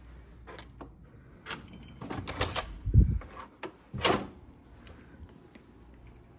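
Hotel room door with an electronic keycard lock being unlocked and opened. The lock gives a short beep and the latch and lever handle click several times, then a heavy thump about three seconds in as the door swings open, and another knock a second later.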